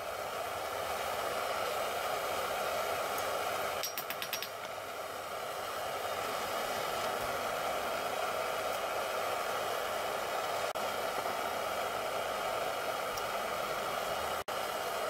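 Steady whooshing noise, with a quick run of light clicks about four seconds in.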